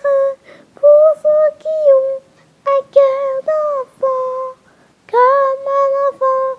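A child singing a slow tune unaccompanied, in short phrases of held, gliding notes with brief breaks between them.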